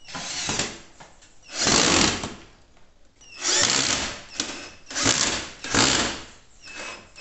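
Cordless drill/driver driving a screw into a kitchen cabinet in five or six short bursts, the trigger let go between them. The bit is not pressed hard enough into the screw, which the installer warns will strip the screw head.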